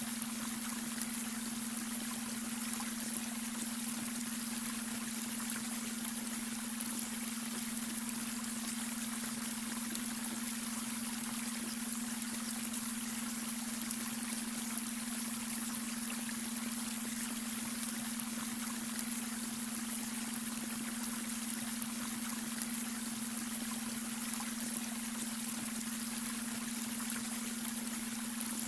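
Babbling brook running steadily, an even rush and trickle of water, with a constant low steady tone underneath: the beta brainwave tone mixed into the water sound.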